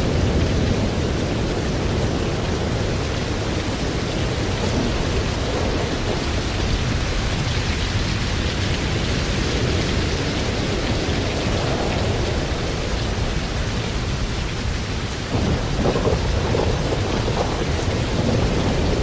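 Typhoon wind and heavy rain, the wind rumbling on the microphone. The noise gets a little louder about fifteen seconds in.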